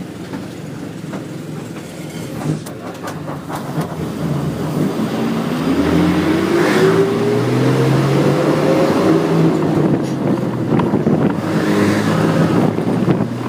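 Bus engine and road noise heard from inside the bus as it pulls away: the engine tone rises in pitch and grows louder from about four seconds in as the bus accelerates. There are a few clicks and rattles about three seconds in.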